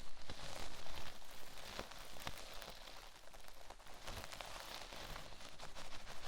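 Close, crackly scratching and brushing of an ear-cleaning brush worked against a binaural microphone's ear, a dense run of fine crackles over a soft hiss.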